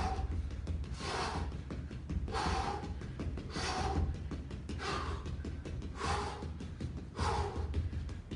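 A man breathing hard from exertion, a loud gasping breath about every 1.2 seconds, as he catches his breath after an all-out boxing interval.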